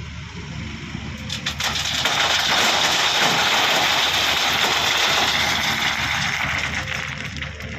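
Doosan DX140w wheeled excavator's diesel engine running steadily under load while its bucket works loose crushed stone: scattered clicks of stone begin about a second in, then a loud rush of rattling gravel lasts about four seconds before easing off.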